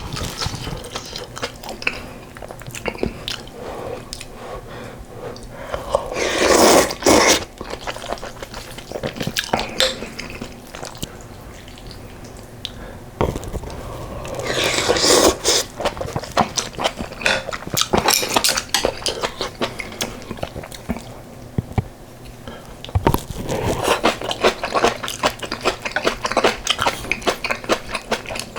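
Close-up eating sounds of a spoon and chopsticks clicking against a bowl of yukgaejang soup with rice. There are two loud slurps of the soup about a third and halfway in, and dense wet chewing near the end.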